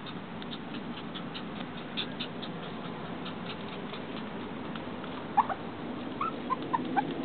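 Shih Tzu puppy whimpering in several short, high squeaks in the second half: the distressed whining of an upset puppy. A run of faint rapid ticks comes in the first half.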